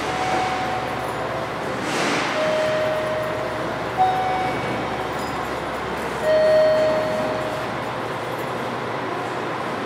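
Railway station platform ambience with train noise: a steady rumbling hiss, a sharp click about two seconds in, and four brief steady high tones, the loudest starting about six seconds in.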